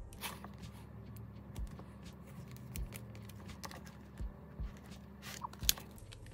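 Photocards and clear plastic binder sleeves being handled: soft scattered clicks and taps, with a sharper click near the end, over a faint steady low hum.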